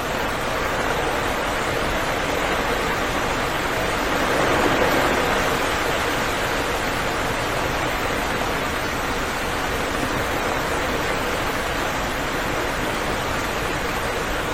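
Steady, heavy rainfall: an even, unbroken hiss of rain that swells slightly about five seconds in.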